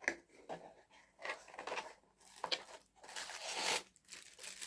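Packaging being unwrapped by hand: irregular bursts of crinkling and tearing rustles.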